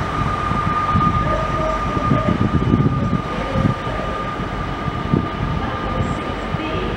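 Class 66 diesel locomotive approaching slowly, its two-stroke V12 engine giving a continuous low rumble, with a steady high-pitched tone running above it.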